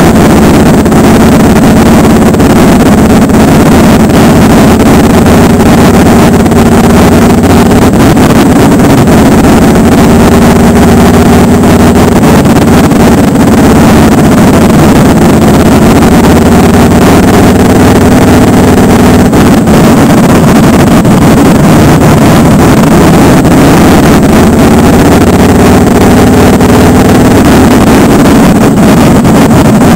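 Motorcycle engine running at road speed, heard from a camera mounted on the bike, with wind rushing over the microphone. The engine note rises and falls gently with small changes of speed, and the whole recording is very loud.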